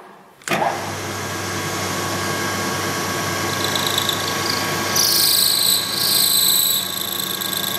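Vertical milling machine spindle with a 1/2 inch end mill starting up about half a second in, then running steadily. A higher-pitched whine and hiss join at about five seconds in.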